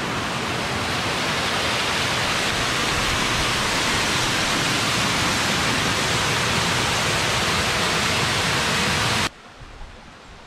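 Waterfall rushing over rocks, a loud, steady roar of falling water that cuts off abruptly about nine seconds in.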